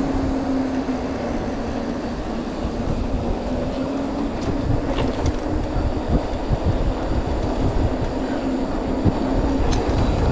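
Off-road vehicle engine running at a steady pitch while travelling over rough trail, with uneven low thumps and rumble underneath.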